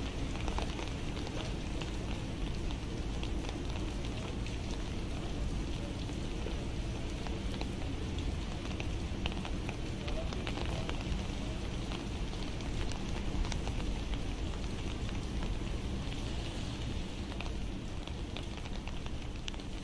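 Steady rain falling on a street: an even patter of drops with many small ticks.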